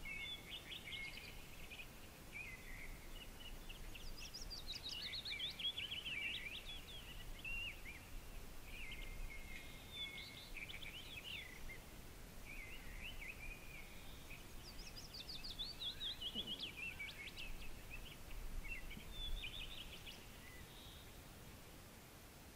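Songbirds singing: phrase after phrase of quick chirps and descending trills, two of them sweeping down from a higher pitch, over a faint steady background hiss.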